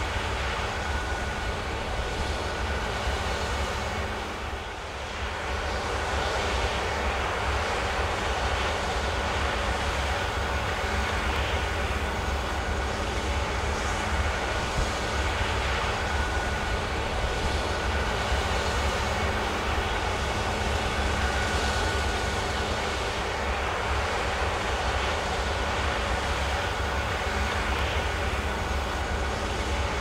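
Claas Lexion 8700 combine harvester running at work with a tractor and grain cart alongside: a steady, deep engine and machinery drone that dips briefly about four seconds in.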